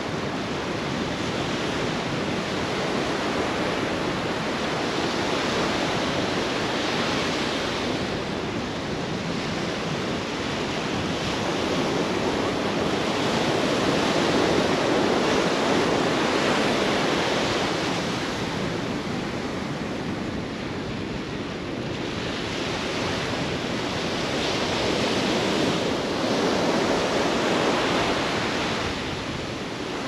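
Atlantic surf washing onto a sandy beach in a steady rush that swells and eases as the waves come in, loudest about halfway through and again near the end.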